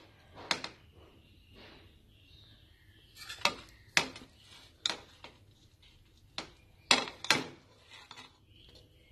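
An aluminium pressure-cooker pot knocking and clinking against the tawa and stove as it is handled: a run of sharp, separate metal knocks at irregular intervals, with the loudest pair about seven seconds in.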